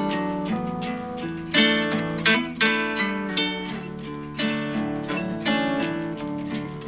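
Background music of a plucked acoustic guitar, notes picked one after another in a steady rhythm.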